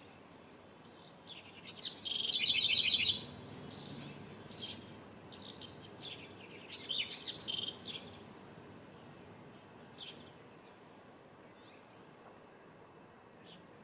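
A wren singing: a loud burst of song with a fast rattling trill about a second and a half in, more song phrases from about five to eight seconds, then a few scattered single chirps.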